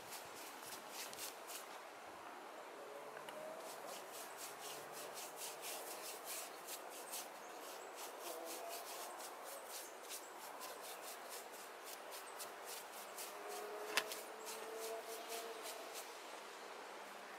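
Paintbrush being worked over a cast cement baluster: faint, quick scratchy brush strokes, several a second, with one sharp knock late on.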